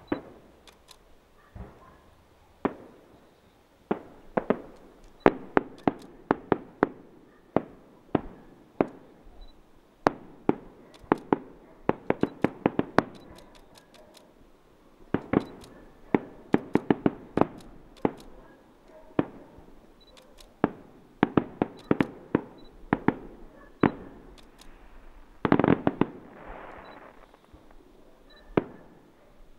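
Aerial fireworks display: shells bursting in a long irregular string of sharp bangs, often in quick clusters of several a second, with a longer, denser burst near the end.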